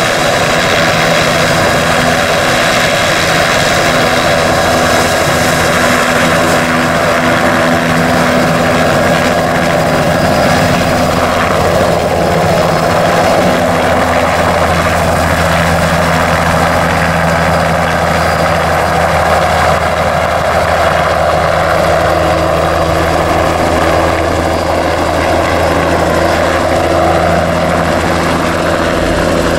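Crop-spraying helicopter, a two-blade Bell 206-type, flying low and close: loud, steady rotor and engine noise throughout.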